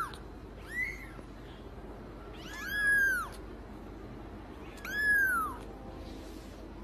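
Kitten mewing: three high, thin mews, each rising and then falling in pitch, a short one about a second in, then two longer ones about two seconds apart.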